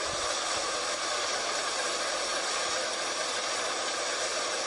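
Muddy flash-flood water surging down a street, a steady rushing noise that does not let up.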